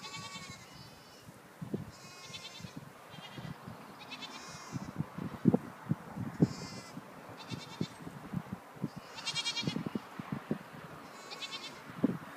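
A herd of goats bleating: repeated high, wavering bleats from several animals, one every second or two. Low, irregular knocks and rustling sit underneath, loudest about five and a half seconds in.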